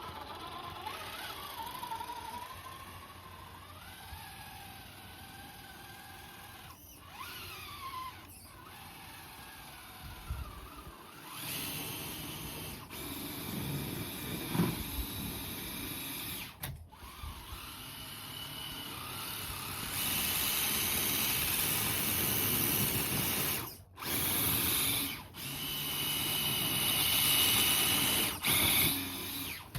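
Electric RC truck's motor and gears whining as it drives on Baja Pro X tires through shallow snow, the pitch rising and falling with the throttle. About halfway through, a rougher, louder noise joins in.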